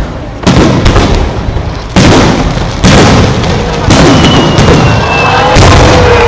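Aerial firework shells bursting overhead: five loud booms about one to one and a half seconds apart, each followed by a rumbling echo and crackle.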